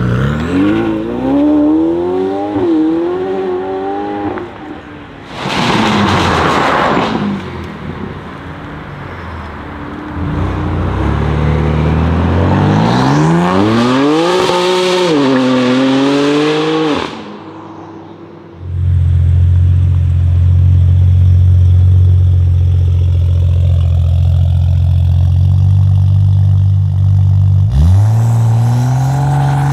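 Several tuned BMW performance cars, one after another: engines accelerating hard, the pitch climbing and dropping back at each gear change. There is a short loud rush of noise about six seconds in. Later comes a steady deep drone that breaks into a quick rising rev near the end.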